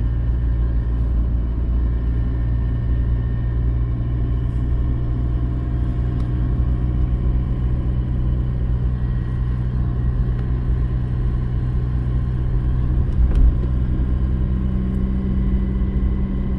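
Steady low hum and rumble of a car's engine and tyres on wet asphalt, heard from inside the cabin while driving. A short thump about thirteen seconds in.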